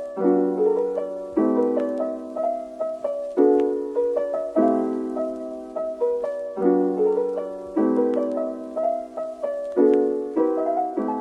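Background piano music: gentle notes and chords struck every second or so, each one dying away.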